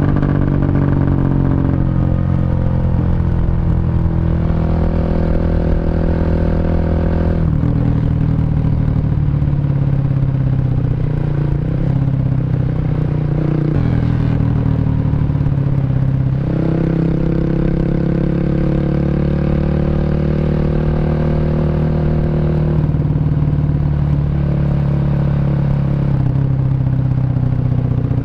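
Honda Revo underbone motorcycle's single-cylinder four-stroke engine, bored up to 150cc and breathing through an aftermarket CLD C7 exhaust, running under way. Its pitch climbs and falls with the throttle, with several sudden steps in pitch.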